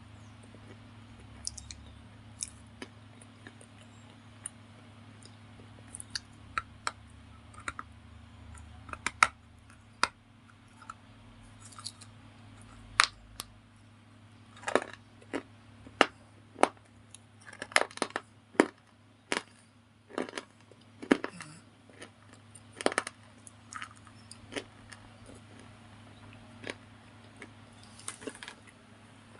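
Crisp cracks and crunches of a white slate bar being bitten and chewed, scattered at first and coming thick and fast in the middle, over a steady low hum.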